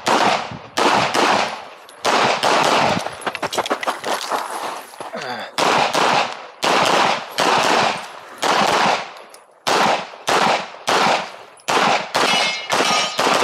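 CZ Shadow 2 pistol fired rapidly, about two shots a second, in strings broken by a longer pause about three seconds in and a short one near the nine-second mark.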